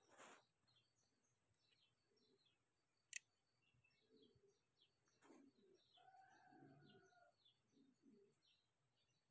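Near silence: faint outdoor ambience with many short, high chirps repeating throughout, a single sharp click about three seconds in, and a steady call lasting about a second from about six seconds in.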